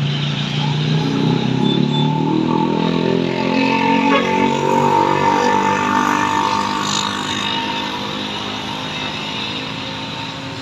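A bus's engine passing close by, with a pitch that bends as it goes past, loud for several seconds and then fading away.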